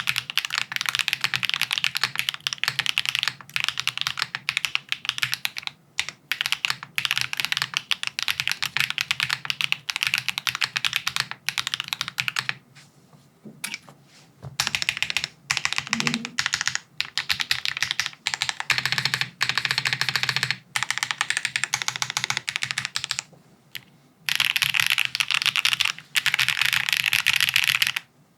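Fast typing on a Haven65 XT gasket-mounted mechanical keyboard with an aluminium plate, no foam, linear switches and PBT keycaps: a dense run of key clicks in bursts, with a break about halfway through and a short one near the end.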